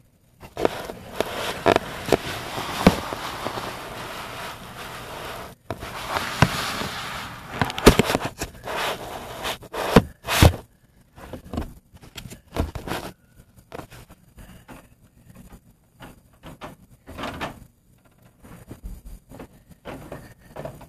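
Handling noise: scraping, rubbing and knocking of plastic toys and of the camera being moved about. There are stretches of rustling with sharp knocks through the first half, then only scattered light clicks.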